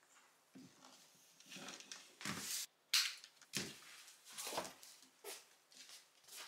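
Dog harness, leads and a plastic retractable lead reel clattering and rustling as a shiba dog dodges being harnessed, its paws scuffling on a wooden floor: a run of irregular knocks and rustles, the sharpest knock about three seconds in.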